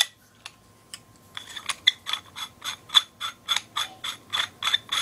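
A paintball barrel being screwed into an Empire Axe marker by hand, clicking like a ratchet. There are a couple of faint ticks first, then from about a second and a half in a run of even, sharp clicks at about four a second as the barrel is turned.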